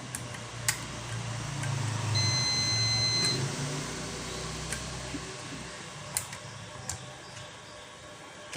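Digital multimeter's continuity beep: one high, steady beep about a second long, starting some two seconds in, as the test probes find a closed path through a conductor of the electric kettle's mains cord. A few light clicks of the probes touching, and a low hum behind.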